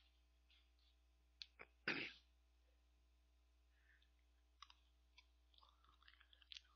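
Near silence, with a few faint clicks of a metal spoon scooping ice cream from a tub. About two seconds in there is one short, louder noisy burst.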